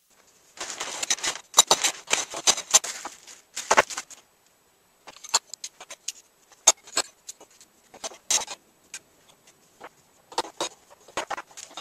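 Plastic packaging crinkling as it is handled, then stainless steel tubes clinking and knocking as they are set down on a wooden table and pushed into plastic corner fittings: a scatter of separate sharp clicks.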